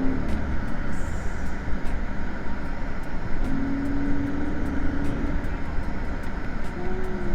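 Steady vehicle noise with a low rumble, like a car running or driving, with a brief pitched tone midway and another near the end.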